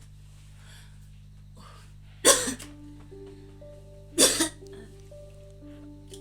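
A person coughs loudly twice, about two seconds apart, over a steady low hum. Soft background music of held notes comes in after the first cough.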